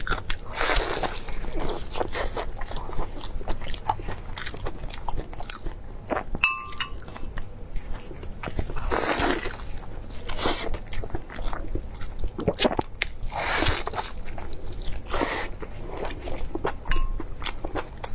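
Close-miked eating: a person biting into and chewing a battered food, with crunchy bites and chewing in repeated bursts. A brief ringing clink about six and a half seconds in.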